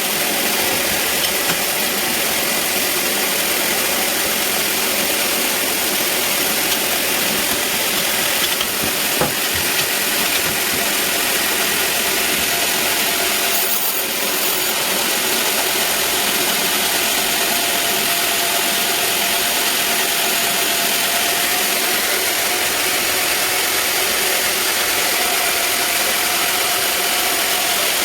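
Sawmill band saw running steadily with a constant high hiss and faint steady whine, a single click about nine seconds in.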